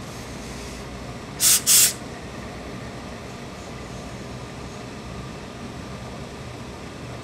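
Tailor's steam iron giving two short hissing blasts of steam, one right after the other, about a second and a half in, over a steady low hum.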